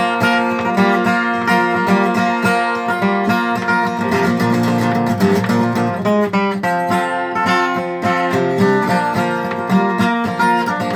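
Instrumental break of a country gospel song, between sung verses.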